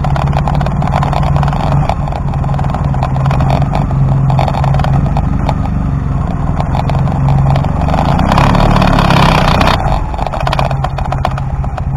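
BMW R1200CL's boxer twin engine running at low revs as the motorcycle rolls slowly along, with a steady even beat. A brief rush of hiss lasts about a second and a half, some eight seconds in.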